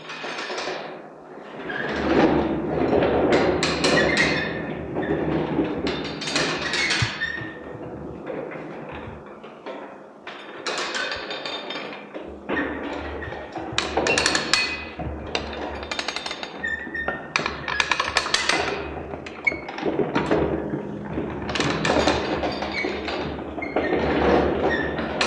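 Wooden walking-cart sculpture carrying a steel oil drum being pushed along, its wooden wheels and legs setting off uneven bursts of knocking and clattering against the drum, with a ringing metallic tone.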